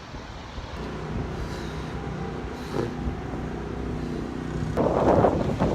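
A large road vehicle's engine running steadily close by, with a louder rushing noise about five seconds in.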